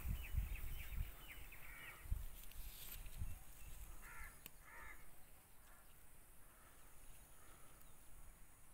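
Birds calling outdoors: two clear calls about four and five seconds in, followed by fainter calls. There are low thumps in the first few seconds.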